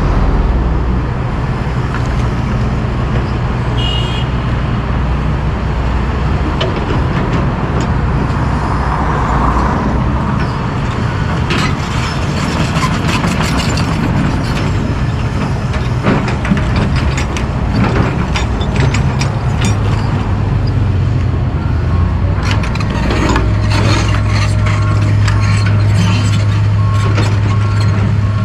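Diesel engines of John Deere track excavators running with a steady low drone. From about a third of the way in come repeated clanks and scrapes of the bucket working dirt and concrete debris. Near the end the engine note grows heavier and steadier under load.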